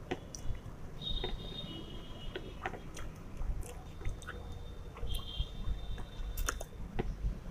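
A person chewing a mouthful of fried rice eaten by hand, with scattered small mouth clicks.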